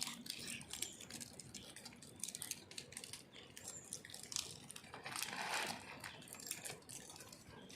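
Faint, irregular crinkling and rustling made of many quick crackles, like something being handled, with a soft breathy swell about five seconds in.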